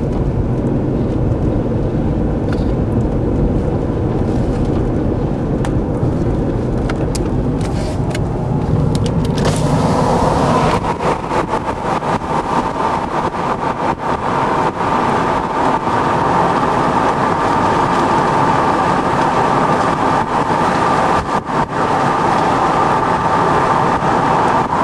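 A car driving along a highway: steady road and wind noise heard inside the vehicle. About ten seconds in, a steadier, higher drone joins it.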